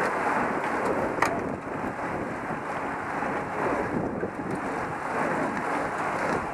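Wind rushing over the microphone of a camera mounted on a road bike riding in a group, a steady noise, with one sharp click about a second in.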